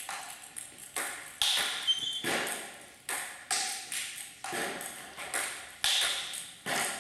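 Table tennis balls clicking off bats and tables, many quick hits at an uneven pace from several rallies at once, each click ringing briefly in the echoing hall.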